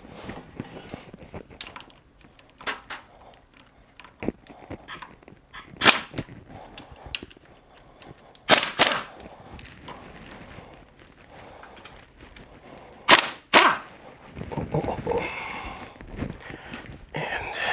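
A power impact tool firing in short, sharp bursts, about five in all, some in quick pairs, as it breaks loose the perimeter bolts of a Subaru TY752 transmission's transfer housing, with light metal clinks in between.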